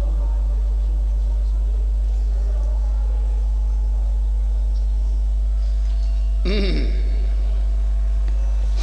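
Steady electrical mains hum from the amplified recording system, with the fading trace of the reciter's last note. A brief voice, rising then falling in pitch, sounds about six and a half seconds in.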